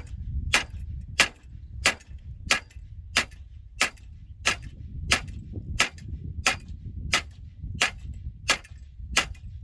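Hammer striking steel on an old disc tiller, working a broken part loose: about fifteen sharp metallic blows at a steady pace of roughly one and a half a second.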